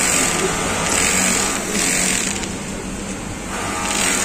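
Feed-off-the-arm industrial sewing machine with a folder attachment running and stitching a seam in denim-weight cloth, a steady high-speed motor and needle hum. About two seconds in it slows and goes quieter for about a second, then picks up again near the end.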